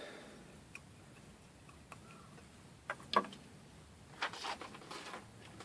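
Light plastic clicks and taps from hands handling and picking at a PLA 3D-printed figure, scattered irregularly, with a small flurry of them a little after the middle.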